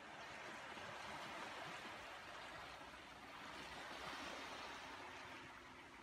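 Faint, steady rush of sea surf washing onto the shore at low tide, swelling gently a couple of times.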